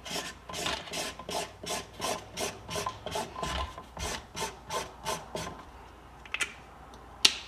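Felt-tip washable marker scribbling back and forth on a paper towel, a rubbing scratch about three strokes a second, stopping about five and a half seconds in. A couple of sharp clicks follow near the end.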